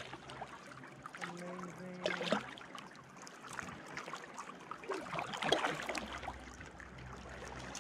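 A distant held shout, about a second long, starting about a second and a half in: a voice called out across the canyon to hear its echo off the rock walls. Faint water dripping and lapping around the kayak underneath.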